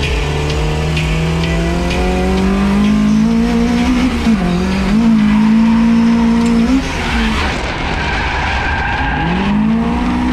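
Toyota drift car's engine held at high revs while sliding, with tyre squeal. Its pitch climbs over the first few seconds, dips briefly about four seconds in, holds high, drops off about seven seconds in, and revs back up near the end.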